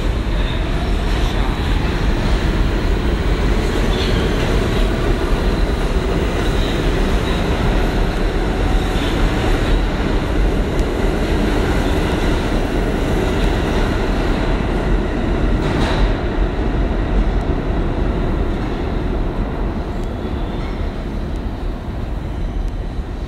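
Subway train passing through the station at speed: a loud, steady rumble of steel wheels on rail, with a few sharp clicks over rail joints. It eases off slightly near the end.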